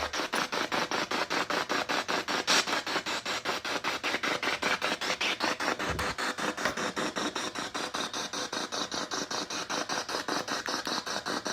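SB7 spirit box sweeping through radio stations: fast, even chopping of static and broken broadcast fragments, about seven pulses a second.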